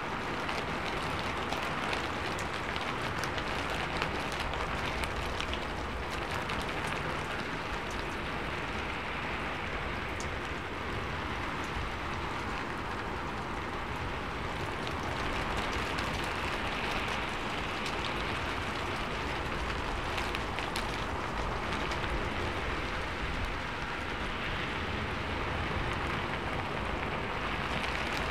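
Rain falling steadily on a sheet-metal roof: a dense, even hiss with many sharper drop ticks scattered through it.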